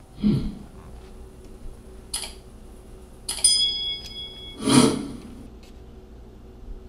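Metal oven rack and door being handled while a flatbread on parchment paper is checked: a bump, a short rustle, a metallic clank that rings briefly about three and a half seconds in, then a louder thump and scrape.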